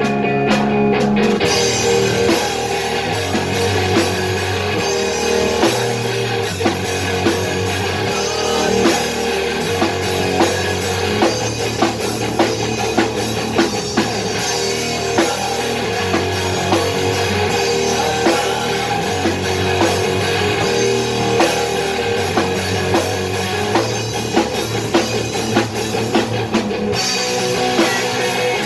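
Rock band playing: drum kit hits at a steady beat over guitar and a bass line that moves between a few low notes.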